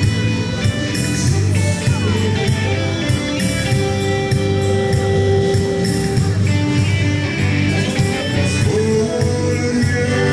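Dance music with a steady bass beat.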